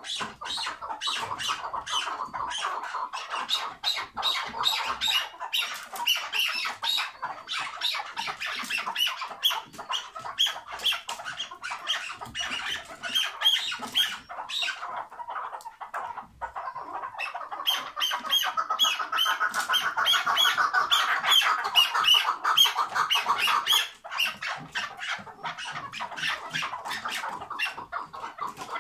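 Caged chukar partridges giving the hıngırma call: a fast, continuous chatter of rapid pulses that runs on with only brief breaks.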